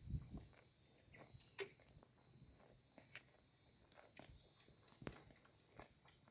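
Cows grazing, faint: irregular crisp snaps of grass being torn off, with soft chewing, and a couple of low thumps at the very start.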